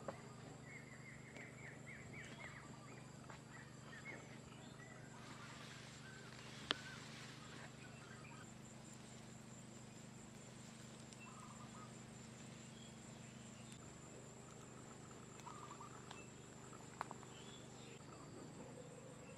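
Faint outdoor ambience: birds chirping in a few short runs over a steady low hum, with two sharp clicks, one about seven seconds in and one near the end.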